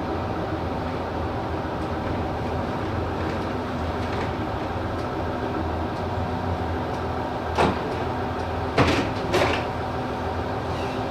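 Bus engine running steadily with a low drone. Three short hissing bursts come in the last few seconds.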